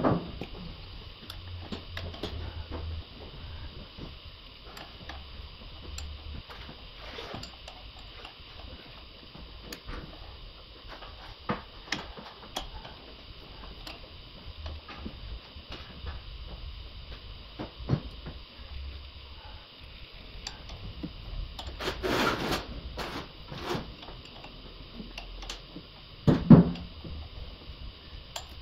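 Hand tools and engine parts clicking and knocking lightly as the engine bay of a diesel engine is taken apart, with scattered small clicks, a brief rustle about three quarters through and a louder knock near the end.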